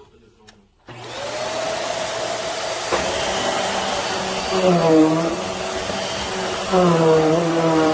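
Vacuum cleaner switched on about a second in, its motor spinning up with a rising whine and then running steadily with a loud rush of air. Twice its pitch dips and recovers.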